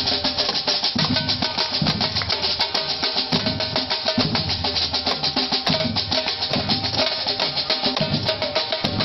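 Street drummers playing a snare drum and a marching bass drum in a fast, steady rhythm, with rattling strokes over heavier low beats.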